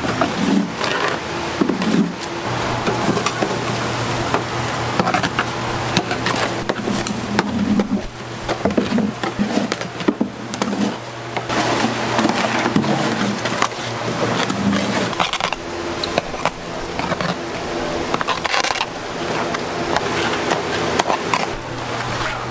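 Repeated knocks and clatter of cookware and utensils over a steady low hum.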